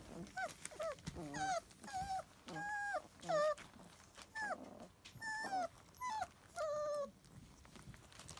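Young puppies whimpering and yelping: a string of about a dozen short, high cries, some falling in pitch and a few held briefly, as the littermates squabble.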